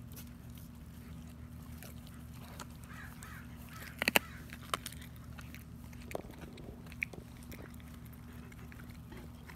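German Shepherd chewing raw chicken on the bone, with sharp cracks of bone crunching between its teeth: a loud cluster about four seconds in, then a few single cracks. A steady low hum lies underneath.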